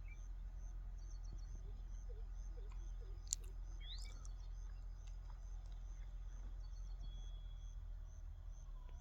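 Open-field ambience: an insect chirping in a steady high pulse about three times a second, with a few short bird chirps over a low steady rumble. A single sharp click comes about a third of the way in.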